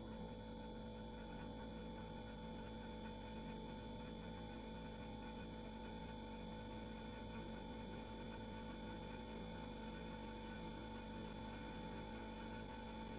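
Refrigerator running: a steady, faint hum with several constant tones over a low noise.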